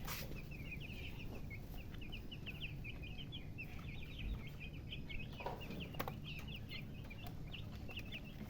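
Chickens' chicks peeping continuously: many short, high, overlapping chirps, several a second, over a steady low rumble, with a sharp knock about six seconds in.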